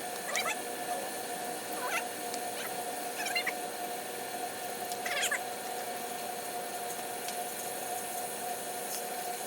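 Short high animal calls, about four spread over the first five seconds, over a steady background hum.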